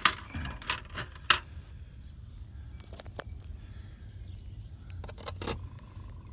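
A few sharp metallic clicks and clinks from the RV range hood vent's metal housing and loose parts being handled, clustered in the first second and a half and again about five seconds in, over a low steady rumble.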